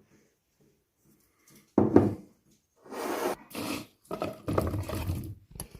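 Boiled potatoes being mashed in a bowl with spices and gram flour: squashing and scraping in three bursts, the first short and loudest, the next two longer, with quick tapping near the end.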